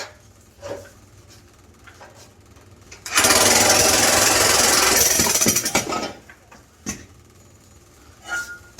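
Jackhammer hammering on a cast-iron boiler in one burst of about three seconds, starting about three seconds in. A few single knocks come before and after it.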